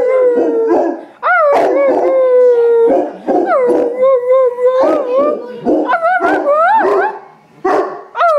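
Large black dog howling in a string of long, wavering notes, each held a second or two, with short breaks between them.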